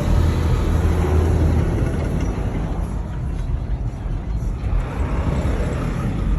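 Steady road and engine noise of a car being driven, heard from inside, a continuous low rumble.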